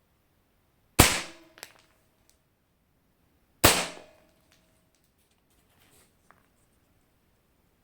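Two shots from an upgraded airsoft gun fired at a zucchini at close range, about a second in and again about two and a half seconds later, each a sharp crack that rings briefly as it dies away, with a smaller click just after the first.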